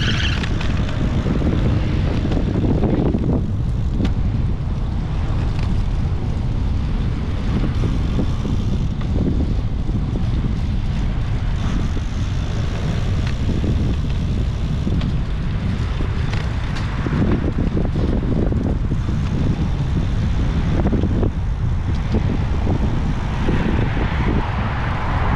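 Wind buffeting the microphone of a bicycle-mounted action camera while riding, a steady low rumble mixed with tyre and road noise.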